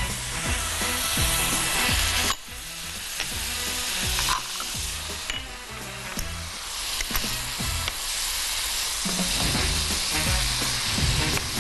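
Fish fillets in sauce sizzling in a pan, with stirring; the sizzle dips abruptly about two seconds in and comes back. Background music with a steady beat runs underneath.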